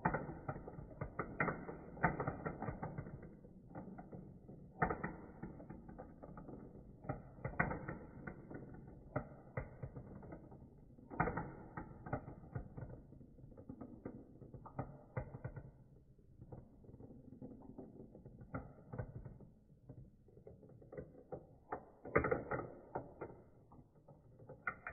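Small marbles rolling and clattering down a plastic marble run. Irregular clicks and rattles come in bunches as the marbles drop through the tubes and knock along the plastic track.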